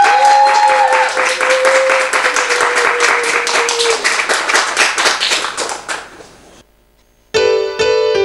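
Applause, dense clapping with a held musical note under it, dying away after about six seconds. Near the end a keyboard backing track starts up.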